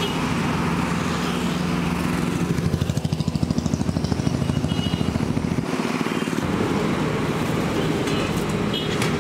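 Road traffic: motorcycles and scooters passing with their engines running, with a pulsing engine beat about three seconds in.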